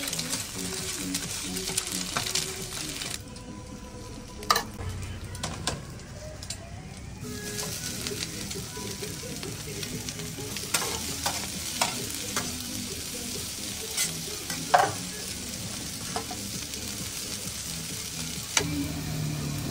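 Egg and shredded vegetables sizzling on a hot flat-top steel griddle while two metal spatulas stir and scrape them: the frying stage before the noodles go in for stir-fried rice noodles (chao he fen). Sharp clicks of spatula on steel come now and then, the loudest about four seconds in and around fourteen seconds.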